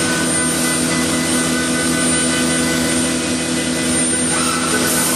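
CNC woodworking machine running steadily, its spinning head and motors giving a loud even whine made of several steady tones over a hiss. Near the end a new higher tone comes in.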